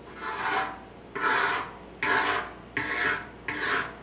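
Flat-edged paint scraper scraping stripper-softened, lifted paint off the metal of a 1972 Honda CB350 gas tank, in about five short rasping strokes.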